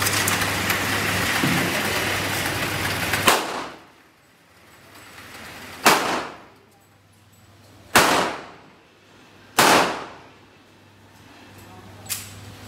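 Gunshots at a pistol range: a sharp crack about three seconds in, three more loud shots spaced about two seconds apart, and a fainter one near the end, each followed by a short ringing tail. The first shot ends a steady loud noise that opens the clip.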